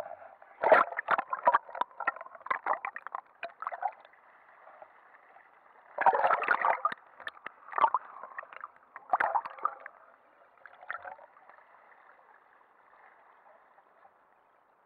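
Seawater splashing and gurgling around a waterproof action camera as it is plunged under the surface and pulled back out. Clusters of splashes come in the first few seconds and again about six to ten seconds in, then only a faint hiss.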